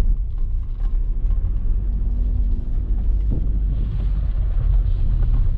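Low rumble of the Tata Tiago's three-cylinder engine and road noise, heard inside the cabin as the car creeps along in low gear. The engine is running at low revs, close to stalling, with a faint steady hum for about a second near the middle.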